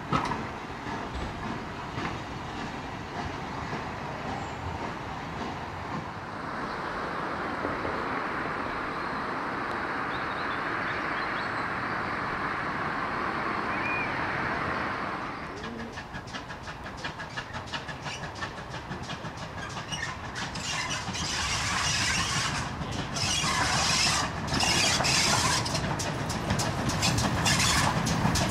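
Heritage steam train: coaches rolling along the track, then a steady hiss of steam from an ex-GWR pannier tank locomotive for several seconds. After that the locomotive comes nearer, its sound growing louder with sharp irregular beats in the last few seconds.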